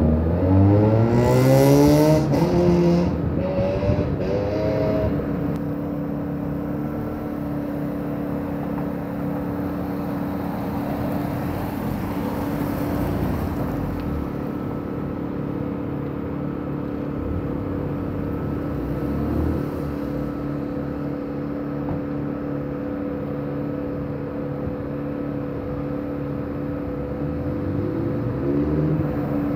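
A car accelerating hard away, its engine rising steeply in pitch through two gears in the first few seconds. A steady engine drone follows, a car drives past about midway, and another engine starts to rise again near the end.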